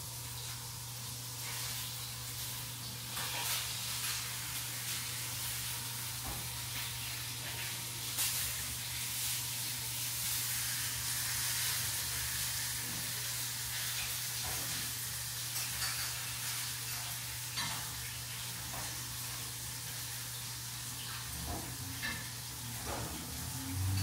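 Food sizzling in a hot frying pan, with a few short clicks and taps scattered through, over a steady low hum.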